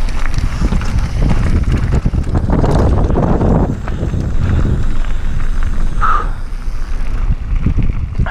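Downhill mountain bike rolling fast over a loose gravel and stone track: tyres crunching and the bike rattling over the stones, with wind buffeting the microphone.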